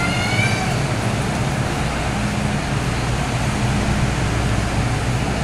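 MTR M-Train metro car running between stations, heard from inside the car: a steady rumble of wheels and track with a low hum that swells and fades.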